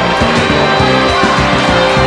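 Loud background music with a steady beat and a moving bass line.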